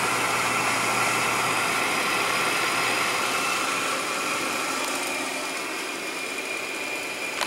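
Incinolet CF electric incinerating toilet running with its cover off: the squirrel-cage blower motor gives a steady hum and whir of moving air. It eases slightly in the second half, and there is a small knock at the very end.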